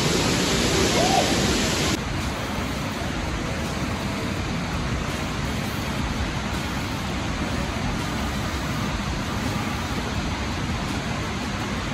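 Waterfall: a steady rush of falling water. About two seconds in it changes abruptly to a slightly quieter, duller rush.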